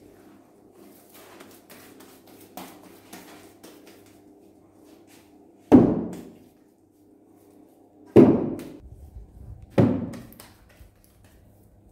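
Three heavy thuds a second or two apart, each ringing on briefly in a tiled room: lumps of lavash dough being slapped down onto a wooden board.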